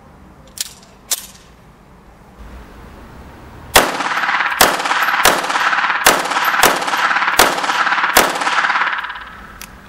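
Frommer 37M pistol firing seven rounds of 9mm Browning short in a steady string, about one shot every 0.7 seconds, each shot trailed by ringing echo. Two light clicks come a few seconds before the first shot.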